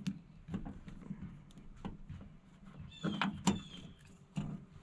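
A utility knife blade trimming a small plastic plug, giving short squeaks about three seconds in among light clicks and handling noise.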